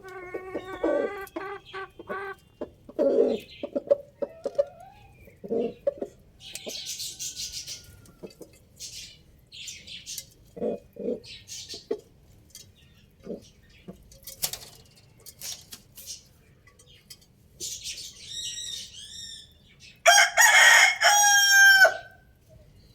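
Roosters crowing, with clucking and short calls in between; the loudest crow comes near the end. A few brief rustling noises break in through the middle.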